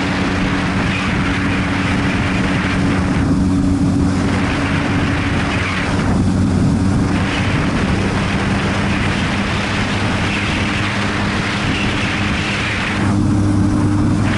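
Motorcycle engine running at a steady cruising speed, its hum holding one pitch, under a heavy rush of wind and road noise that eases briefly three times.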